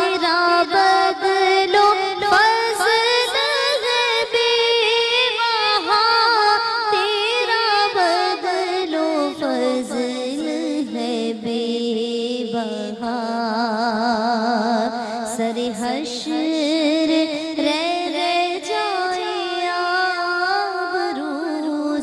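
A woman singing an Islamic devotional song solo into a handheld microphone. She draws out long, gliding notes without the breaks of speech, with a wide, even vibrato on the held notes about halfway through.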